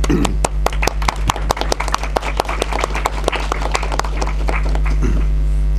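Audience applauding at the end of a lecture, the clapping thinning out and dying away after about four and a half seconds, over a steady electrical mains hum.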